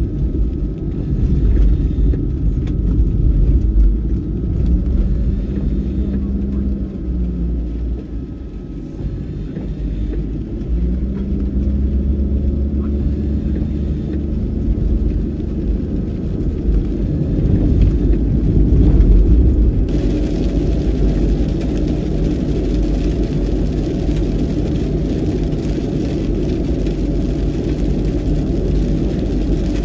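A van's engine and tyre rumble heard from inside the cabin while it is driven on a wet road. The engine note holds, then shifts in pitch now and then as it goes.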